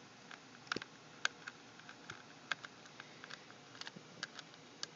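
Faint, irregular light clicks of a small screwdriver working long screws out of an HP DV7 laptop's plastic bottom casing.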